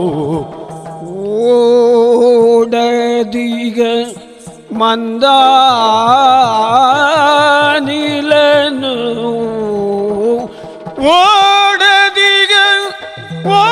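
Yakshagana music: a high melodic line held in long, wavering notes over a steady low drone, with drum strokes from the chande and other percussion. The music dips briefly about half a second in, near four seconds, and near ten and a half seconds.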